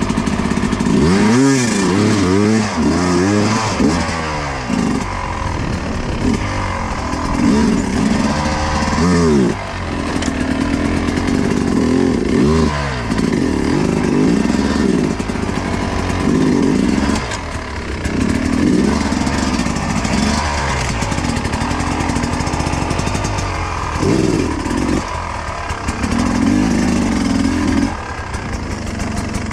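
Dirt bike engine revving hard, its pitch rising and falling over and over with quick throttle blips and brief lulls between them.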